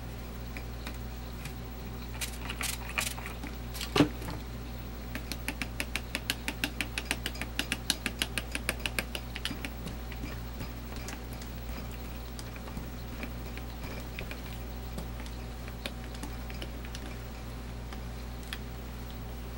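Rubber brayer rolled over tacky paint on a homemade gelatin printing plate: a quick, even run of sticky clicks, about six a second, for a few seconds, preceded by a single sharp knock and a few scattered clicks. A steady low hum sits underneath.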